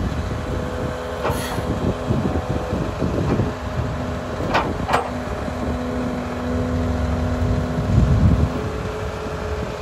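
Volvo EC380EL crawler excavator's diesel engine running under hydraulic load as the boom, stick and bucket move, with a steady tone from the engine and pump. Two short squeals come about halfway through, and the low rumble swells near the end.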